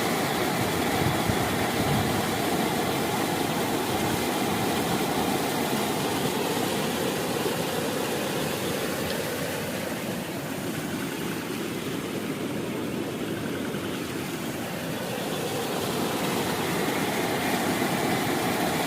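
Rushing floodwater pouring over a waterfall: a steady rush that eases a little midway and swells again near the end.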